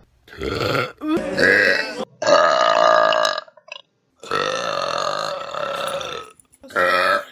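A string of loud human burps, about five in a row with short gaps between them, including one long drawn-out belch of some two seconds past the middle.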